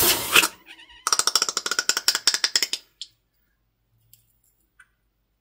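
Scissors cut into a slime-filled rubber balloon, and the slime gushes out with a rapid, buzzing sputter for about two seconds, then stops.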